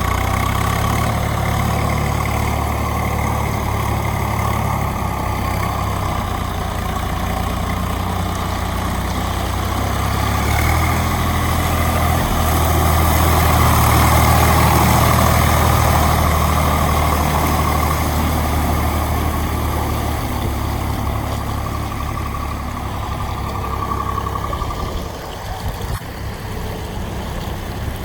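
Heavy diesel engine idling steadily, growing louder in the middle and dropping back near the end.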